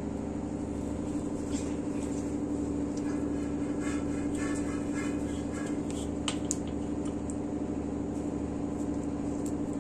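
A steady mechanical hum, with a few faint clicks and scrapes from a knife paring the skin off a raw green mango.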